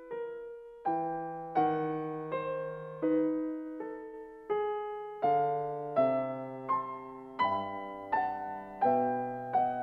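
Background music: slow, gentle piano, single notes and chords struck about every three-quarters of a second, each left to ring and fade. Lower bass notes join in the second half.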